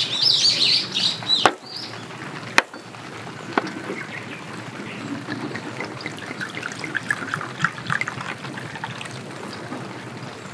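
Sake poured from a glass bottle into a wooden cup, a trickle with quick glugging blips over several seconds in the second half. Before it, a bird chirps and there are two sharp knocks.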